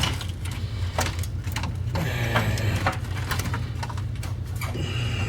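A few sharp clicks and scrapes of a fuel pump assembly's hose fittings being worked by hand, over a steady low rumble.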